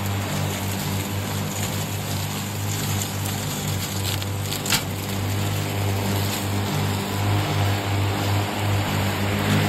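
Remote-control lawn mower running steadily with a low hum that wavers slightly, and one sharp crack a little before halfway through.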